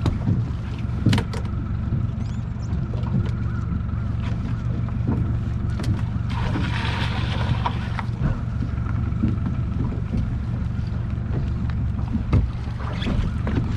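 Water from a bucket poured over the side of a small fishing boat splashes into the sea for about a second, around the middle. Under it a steady low motor drone and scattered knocks on the deck.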